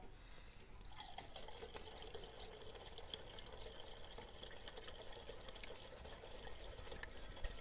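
Diesel fuel pouring through a mesh-strainer funnel into a tractor's fuel tank: a faint, steady trickle that starts about a second in.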